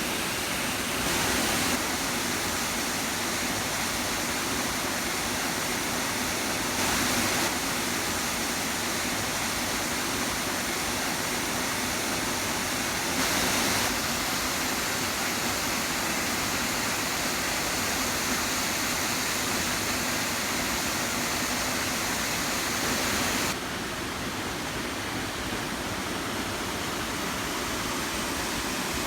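Steady rush of falling water from Materia Falls. It swells briefly three times, about 1, 7 and 13 seconds in, and drops a little after about 23 seconds.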